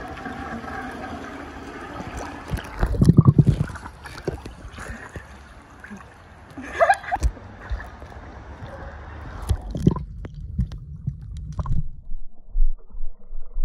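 Pool water splashing and sloshing as a swimmer moves through it, with a loud rumbling burst about three seconds in. From about ten seconds in the sound turns dull and muffled, heard from under the water.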